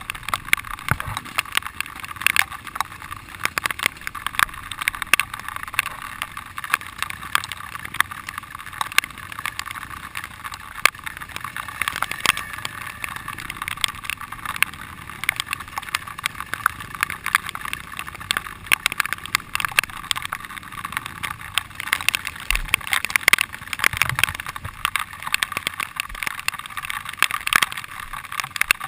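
Riding noise of a dirt bike on a rough, wet trail, picked up by a body-mounted camera: a thin, steady rush with constant crackling clicks and knocks.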